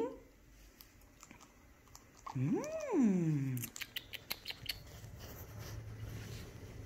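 Pet bird sounds: one drawn-out call that rises and then falls in pitch about two seconds in, followed by a quick run of sharp clicks and taps.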